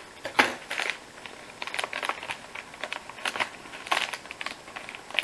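Crinkly plastic snack bag of sweet potato chips rustling and crackling as it is snipped with scissors and pulled open by hand: a run of irregular sharp crackles, the loudest about half a second in.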